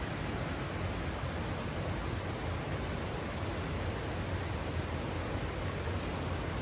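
Steady rushing noise, even throughout, with nothing standing out above it.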